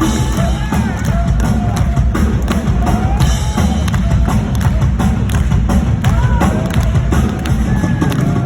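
Song with a heavy, thudding bass-drum beat and voices over it.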